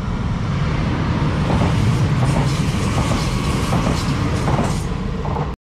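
Comboios de Portugal passenger train running past and into a tunnel portal: a steady rumble of wheels on rails, with a run of short clicks from about a second and a half in.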